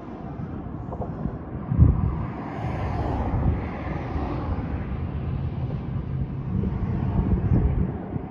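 Wind rumbling on the microphone outdoors, rising and falling, with a louder bump about two seconds in.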